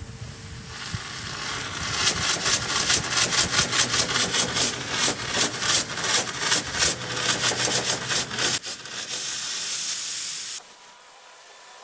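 Hopper-fed sandblaster blasting with compressed air: a loud hiss that sputters in rapid, uneven pulses over a low hum for several seconds, then runs as a steady hiss before cutting off suddenly near the end. The sputtering goes with the owner's complaint that the hopper's sand output needs fine adjustment and tends to clog.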